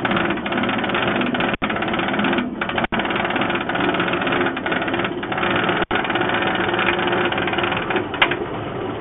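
Inverted roller coaster train climbing a chain lift hill: a loud, fast, steady mechanical clatter of the lift chain and anti-rollback, heard from the front seat. The sound drops out completely for an instant three times.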